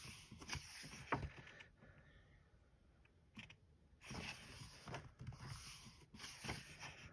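Pages of a coloring book being turned and handled: faint paper rustling in two stretches, at the start and again from about four seconds in, with a few sharp clicks.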